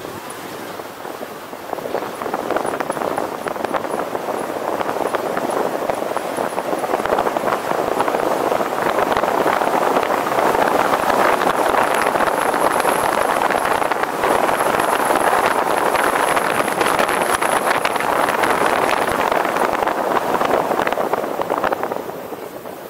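Road traffic noise: a steady rush of vehicle and tyre noise that swells over the first several seconds, holds, and dies away near the end, with a faint thin high whine through the middle.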